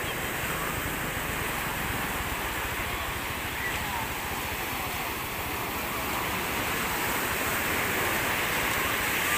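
Steady wash of sea surf, with faint voices calling in the distance now and then.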